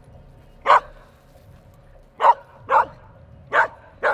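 A dog barking: about five short, sharp barks at irregular intervals, two of them close together in the middle.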